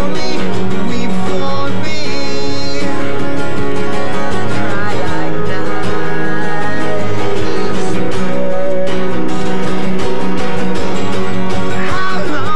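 Acoustic guitars strummed together in a live acoustic duo performance, led by a twelve-string acoustic guitar strummed with steady, rapid strokes.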